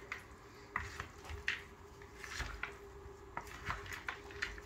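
Spatula folding a potato salad of sliced potatoes, pickles and bacon in a mixing bowl: soft, irregular scrapes against the bowl and wet squishes of the potatoes, with a few light clicks.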